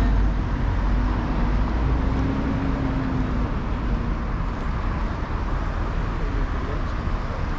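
Road traffic on a city street: a vehicle's engine rumbling low, with a steady hum through the first three seconds or so, over continuous street noise.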